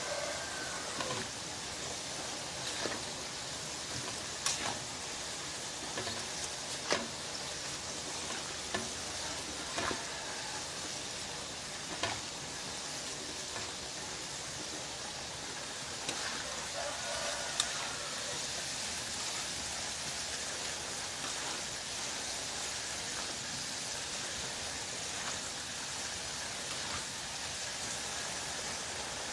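Grasshoppers frying in hot oil: a steady sizzle with a few sharp clicks now and then.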